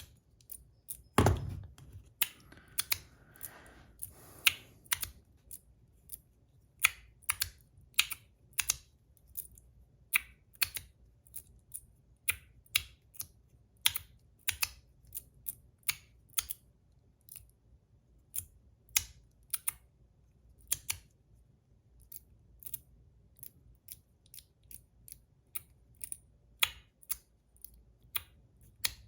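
Metal magnetic fidget slider being played with, its sliding pieces clicking together over and over, about two clicks a second at an uneven pace, with one louder knock about a second in.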